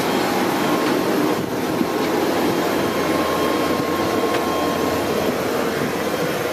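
Steady airport apron noise while boarding an aircraft: a loud, even mechanical drone with thin high whining tones running through it.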